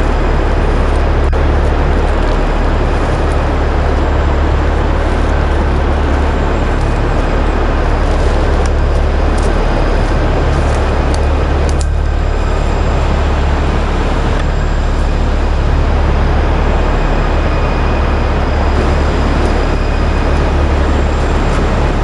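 Steady, loud rush of water from waterfalls and a mill channel, with a couple of faint clicks.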